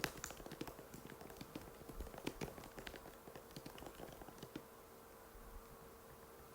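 Typing on an Apple MacBook butterfly keyboard: quick, shallow key clicks, dense for the first few seconds, then thinning to a few scattered taps near the end.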